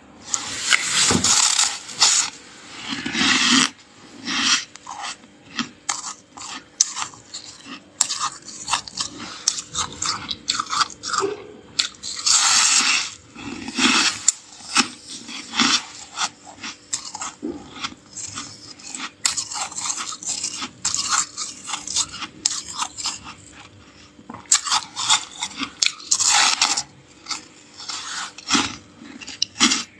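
Crunching and chewing of fluffy freezer frost, bitten off in mouthfuls: many irregular crisp crunches, some in longer runs of about a second.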